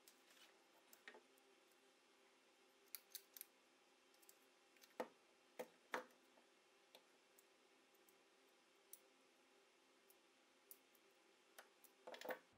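Parts of an 1887 St Etienne shotgun being handled during disassembly: scattered small clicks and ticks, three sharper knocks about five to six seconds in, and a quick cluster of clicks near the end, over a faint steady hum.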